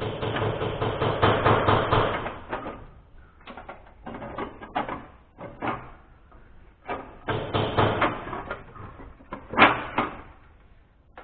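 Metal clattering and rattling from hand tools and engine parts being handled, in several bursts with sharp clicks and knocks between them.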